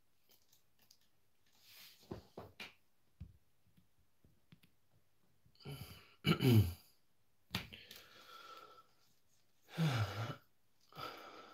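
A man's short wordless vocal sounds, two brief hums or sighs with gliding pitch about six and ten seconds in, with a few soft clicks earlier.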